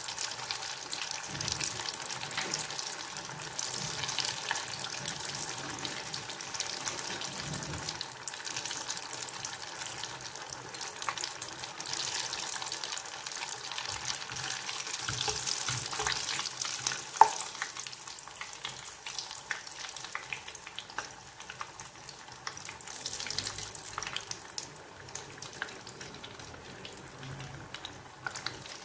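A mashed-potato ball deep-frying in hot olive oil in a saucepan, the oil sizzling and crackling steadily. One sharp click sounds a little past the middle.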